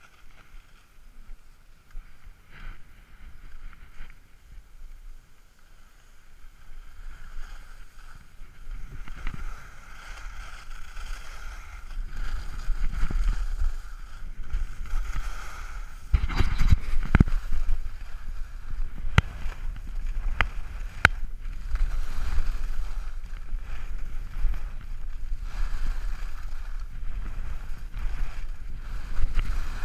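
Wind rushing over the camera microphone and skis sliding and scraping on packed snow during a downhill run, quiet at first and growing louder after several seconds. Several sharp knocks come around the middle.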